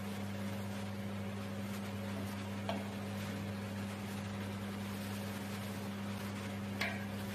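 Steady low machine hum, with two faint light clicks.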